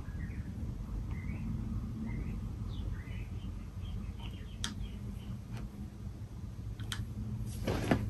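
53-inch Casablanca Halogen Star ceiling fan running with five blades: a steady low motor hum. Faint high chirps come and go over it, with a few sharp ticks in the second half and a louder rustle near the end.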